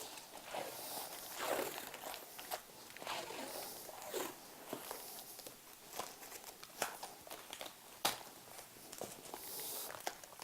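Faint handling sounds of wrapping paper and tape: intermittent rustling with scattered small clicks and knocks, as a clock pendulum is secured to a spline.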